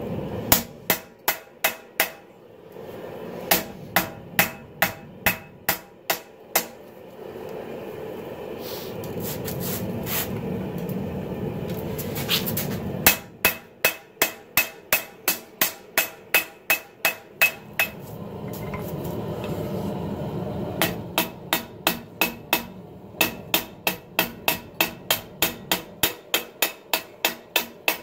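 Hand hammer blows on red-hot 80CrV2 steel over a 66 lb cast-steel anvil, drawing out a knife blade: runs of sharp ringing strikes, about two to three a second. The runs are broken twice by pauses of several seconds filled with a steady rushing noise.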